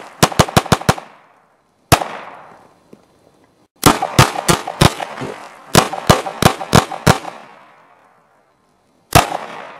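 High Standard HD Military .22 Long Rifle semi-automatic pistol fired fast, shots cracking about three a second. There are five quick shots at the start and a single one about two seconds in. Strings of about six and five follow between four and seven seconds, then a last single shot near the end, each group trailing off in a short echo.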